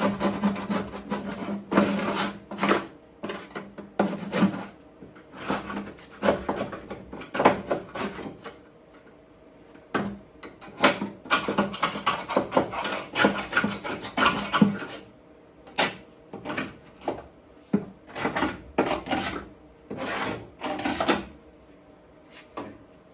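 Hand scraper scraping old tar off a car's sheet-metal firewall in repeated rough strokes, in bursts with short pauses between them.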